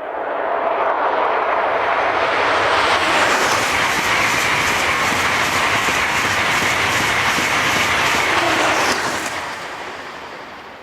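A train passing by: the rail noise builds over about a second, holds steady with a fast, even clicking of the wheels, then fades away over the last two seconds.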